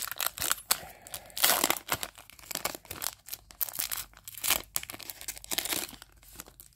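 Wrapper of a small Pokémon trading-card pack being torn open and crinkled by hand, in irregular crackling bursts.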